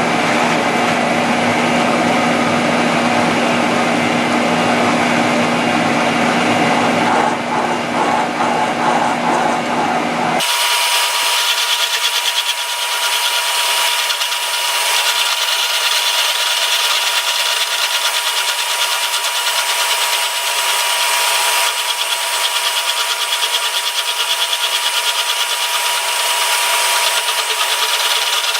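Milling machine cutting steel, taking a light skim cut across a vise jaw, with a steady grinding cutting noise. About ten seconds in the sound changes abruptly: its low hum drops away and a steady high whine comes in.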